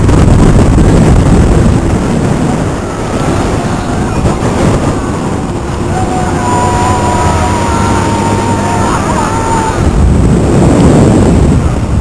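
Rushing wind buffeting the microphone of a rider on a Mondial Turbine thrill ride as it spins and swings, surging loudest at the start and again near the end.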